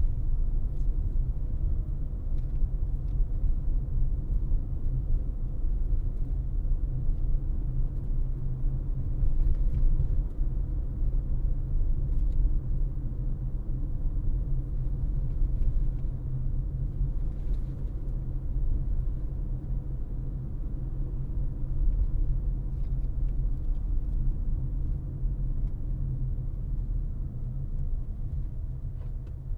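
A car driving, with a steady low road rumble and a few faint light knocks.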